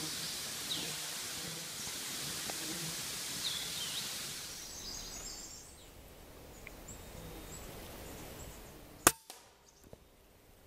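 A single sharp crack about nine seconds in: a shot from a .22 calibre Kalibrgun Cricket pre-charged pneumatic air rifle firing a pellet. Before it, steady outdoor hiss with a few short bird chirps.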